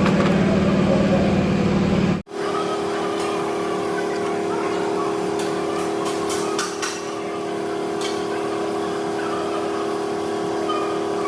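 An engine running steadily, heard as a constant hum that cuts off abruptly about two seconds in and gives way to a steady, higher-pitched hum. A few light clicks sound over it.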